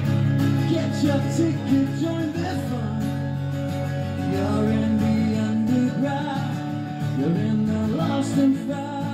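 Acoustic guitar strummed through an instrumental break of a song, with a wavering melody line that bends and holds notes over the chords.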